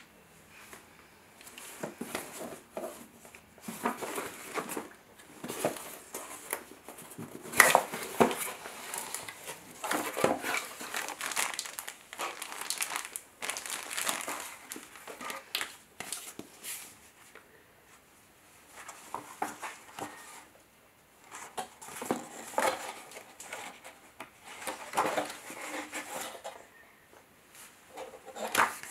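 Hands handling a cardboard box and its contents: flaps pulled open, a plastic bag crinkling, and paper booklets rustling. Irregular rustles and small knocks come in clusters with short quiet pauses between them.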